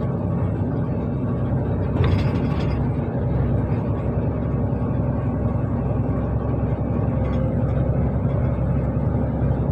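Loaded lorry's diesel engine and road noise heard from inside the cab while driving at speed, a steady low rumble. About two seconds in there is a brief louder hiss lasting under a second.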